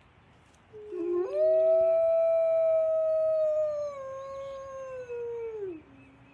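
A long canine howl. It rises sharply to a held note about a second in, steps down in pitch about four seconds in, and slides down to a low finish near the end. A second, fainter howl on a lower, steady note overlaps its start.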